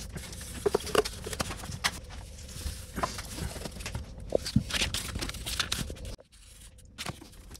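Cardboard being handled and shifted on a concrete floor, with scattered light taps, rustles and the scratch of a felt-tip marker tracing a template, over a steady low rumble.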